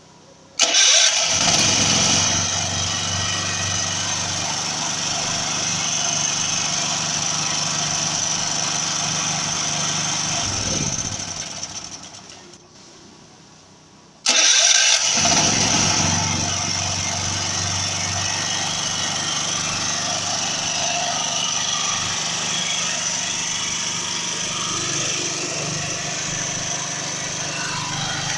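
Portable generator engine starting abruptly about half a second in and running steadily. About ten seconds in it is shut off and winds down over a couple of seconds. After a short quiet it starts again, just as suddenly, and runs steadily to the end. The starts and stops are triggered by a Wi-Fi remote-start controller worked from a phone.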